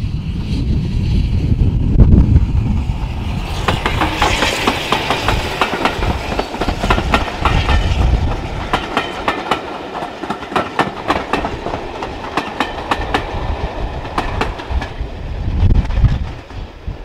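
Steam-hauled passenger train passing close by, its coach wheels clicking over the rail joints in quick, dense runs, with a brief hiss as it arrives about three and a half seconds in.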